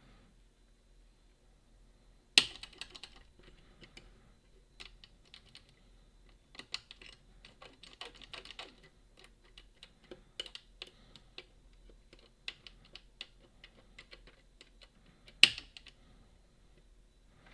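Picking tools working inside a Boda 429 eight-lever deadbolt: an irregular run of small metallic clicks and scrapes as the levers are lifted. Two sharper, louder clicks come about two seconds in and near the end.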